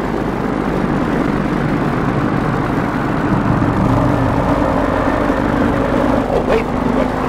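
Diesel locomotive engine running, a steady low drone whose pitch shifts a little midway.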